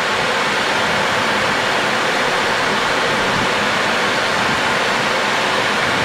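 Steady rushing noise of air streaming past a Boeing 737's flight deck on final approach.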